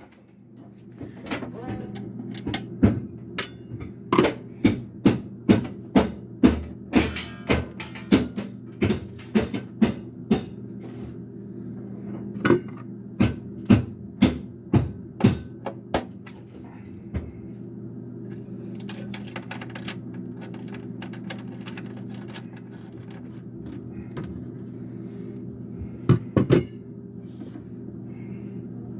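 Sharp knocks like hammer blows in a run of about two a second for the first fifteen seconds, then a few scattered ones and a quick pair near the end, over a steady low machine-like hum.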